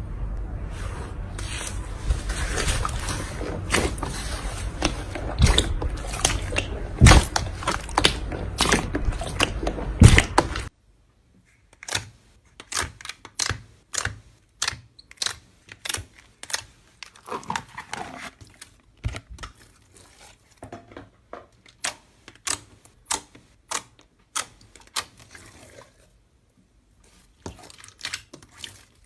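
Slime being squished and poked by hand, giving a dense run of sticky clicks and pops over a steady hiss. About ten seconds in it cuts abruptly to a quieter stretch of separate crackling pops.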